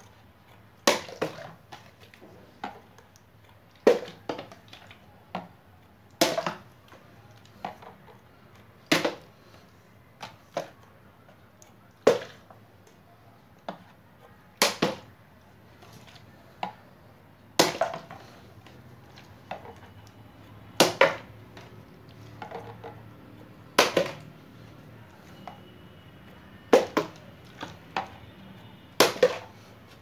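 A plastic bottle being flipped again and again, landing with a sharp slap about every three seconds, each landing followed by a few smaller knocks as it tips over and tumbles across the cube mat.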